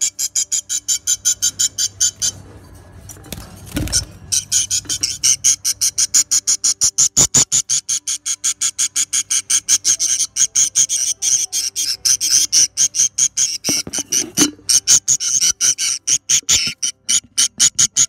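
A rapid, even train of high chirps, about six a second, pausing for about a second and a half about two seconds in, with a low thump about four seconds in.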